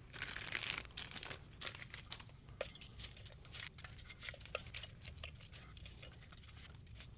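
Packaging rustling and crinkling in irregular bursts as a model train tender is unwrapped from its box, busiest in the first couple of seconds and lighter after.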